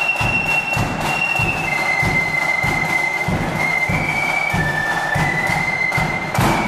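Flute band playing: high flutes hold a simple melody over a steady bass drum beat, about three beats a second.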